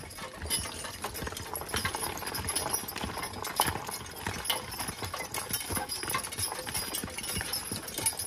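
A team of Belgian draft horses walking, hooves clopping steadily, with irregular knocks and clinks over the top.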